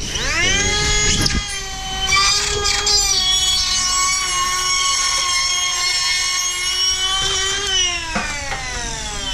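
Cordless drywall router (spiral cut-out tool) spinning up to a steady high whine and cutting around an electrical box in the second layer of 5/8-inch drywall on the ceiling. The pitch falls near the end as the motor winds down.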